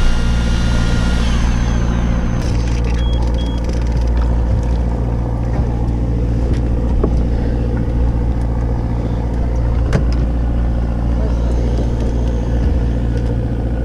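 A fishing boat's engine running steadily with an even low hum, and a single sharp knock about ten seconds in.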